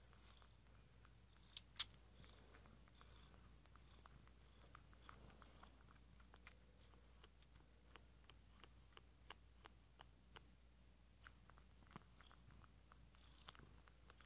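Faint wet sucking and smacking clicks of a tabby kitten suckling on a person's ear as if on its mother's nipple, coming irregularly about once or twice a second, with one sharper click about two seconds in.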